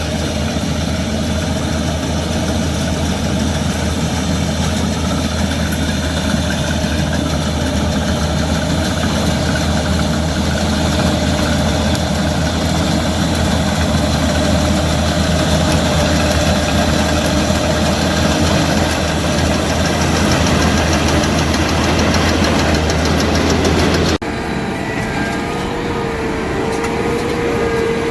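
LS MC85 combine harvester running steadily at work, a loud continuous engine and machinery hum. About 24 seconds in the sound changes abruptly, dropping a little, and a steady whine comes in.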